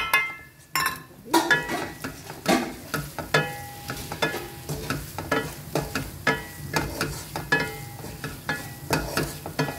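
A wooden spatula stirring potatoes and freshly added spices in a non-stick pot as they fry, knocking against the pot about once a second so it rings briefly, over a steady sizzle. A sharp clink at the start as the bowl of spices is emptied into the pot.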